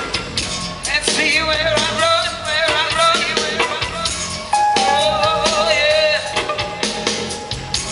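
Live band music with a steady beat and a wavering melodic line over it.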